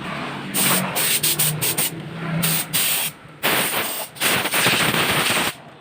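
Electric arc welding with a repaired welding machine: the arc crackles and sizzles in several separate bursts, struck and broken off a number of times, showing the machine now welds after its power transformer was replaced.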